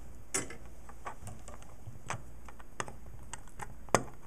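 A few scattered light clicks as a small circuit board and flush cutters are handled, then one sharp, louder snap near the end as the cutters clip a component lead.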